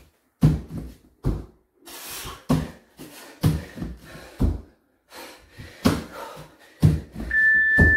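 Bare feet thudding and hands slapping on a wooden floor during high knee burpees, with heavy breathing between the landings. Near the end an interval timer gives one steady high beep, marking the end of the 40-second work period.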